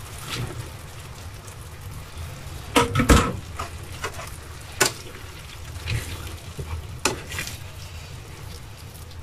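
Tomato sauce sizzling and bubbling in a steel pan as drained scialatielli are tipped in from a plastic colander and stirred. A few sharp knocks against the pan; the loudest come about three seconds in.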